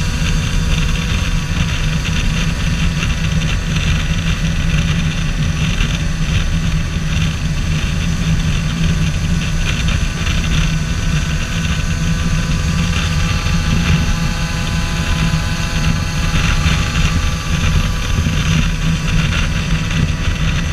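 Motorcycle engine running at a steady cruising speed on the road, with wind rush from riding.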